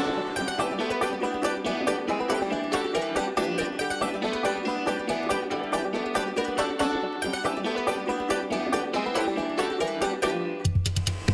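Upbeat country background music led by fast-picked banjo, with a steady run of plucked notes. A deep low sound comes in near the end.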